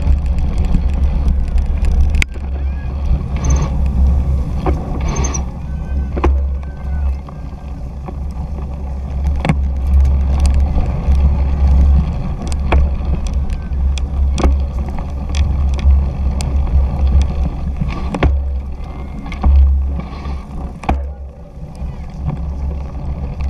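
Steady low wind rumble on the microphone of a 2017 Fuji Jari 1.5 gravel bike ridden in a cyclocross race pack, with frequent sharp rattles and knocks as the bike jolts over rough, rutted dirt.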